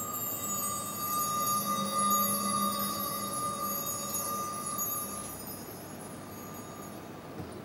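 Metal chimes ringing out after a strike, several clear tones with high shimmering overtones slowly dying away over about five seconds.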